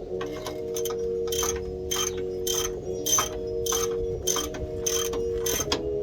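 Hand ratchet wrench clicking in an even rhythm, a little under two strokes a second, as bolts on a truck's front wheel hub are run in during reassembly, over a steady hum.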